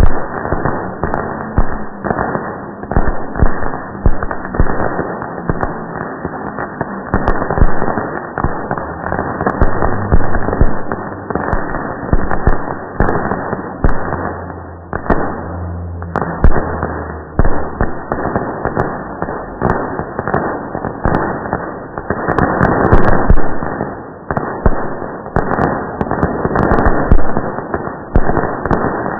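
Fireworks exploding in a dense, continuous barrage of bangs and crackle, slowed down several times along with the slow-motion picture. The bangs come out drawn-out, low and dull, with nothing high-pitched left in them.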